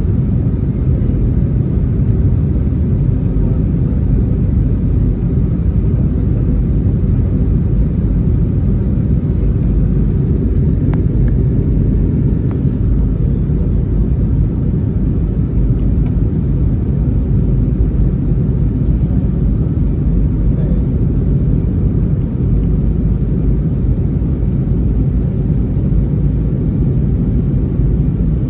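Steady, loud low rumble of engine and airflow noise inside the cabin of an Airbus A321neo airliner, even throughout with no rise or fall.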